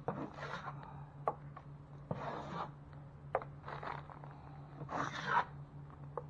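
Repeated short scraping strokes of a drywall tool against the wall, about one a second, with a few sharp clicks between them, over a low steady hum.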